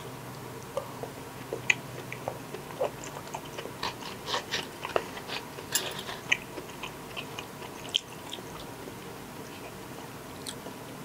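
A person chewing a mouthful of raw shark sashimi: wet mouth clicks and smacks, busiest in the middle and dying away after about eight seconds.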